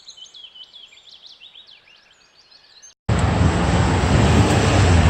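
Small birds chirping rapidly in many short, quick notes over a faint background, then about three seconds in a sudden cut to loud, steady outdoor rumble with much low-end noise.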